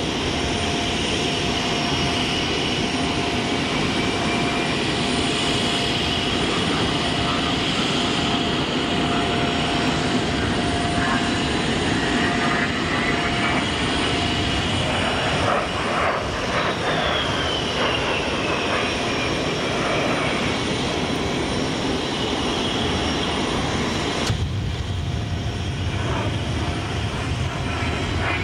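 The twin TF34 turbofan engines of an A-10 Thunderbolt II jet in flight: a steady jet rush with a high whine. A whine glides down in pitch about two-thirds of the way through as the jet passes. The sound changes abruptly about three-quarters of the way in.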